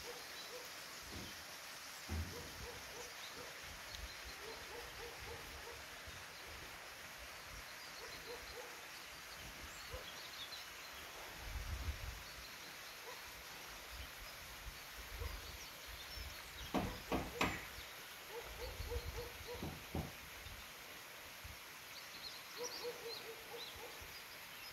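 Outdoor rural ambience: a steady hiss with several low gusts of wind on the microphone, faint repeated short sounds in the background, and a cluster of short, sharper, louder sounds about two thirds of the way through.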